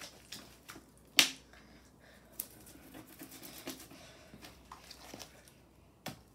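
Freshly made slime being scraped together and lifted off a wooden tabletop with a plastic spatula, giving scattered sticky clicks and pops, one sharper click about a second in.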